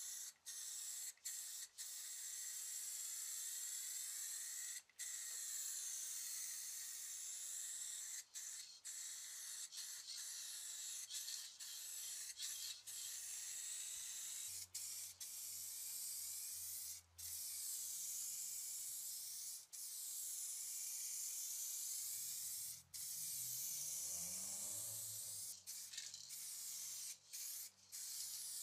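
Aerosol spray can of automotive paint hissing in steady passes, cut by brief pauses every second or few as each stroke ends and the nozzle is pressed again.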